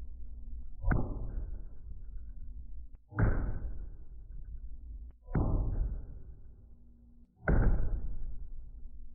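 Four heavy impacts about two seconds apart, each a sharp strike followed by a rumble that dies away over a second or two, like the strikes of a Class 4 hail impact test on a roof membrane.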